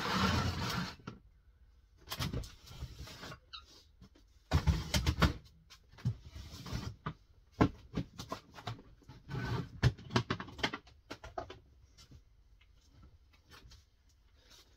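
Rummaging through clear plastic storage boxes: irregular bursts of rustling, scraping and sharp plastic knocks as items are moved about, the busiest burst in the first second.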